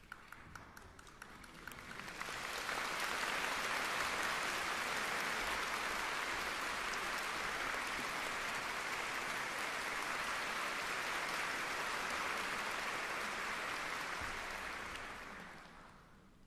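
Audience applauding: a few scattered claps swell into full applause about two seconds in, hold steady, then die away near the end.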